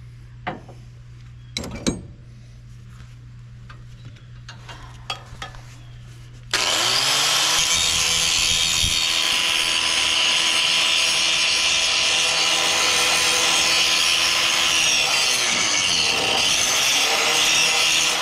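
A few knocks, then about six and a half seconds in an electric angle grinder spins up and grinds the steel trailer frame in one long, loud, steady run. Its pitch dips briefly under load near the end.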